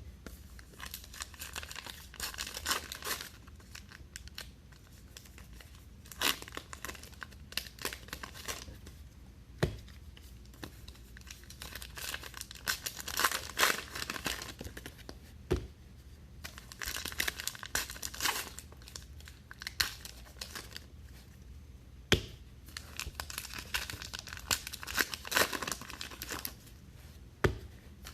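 Packs of Topps Archives baseball cards being ripped open by hand, their wrappers tearing and crinkling in irregular spells, with a few short sharp taps in between.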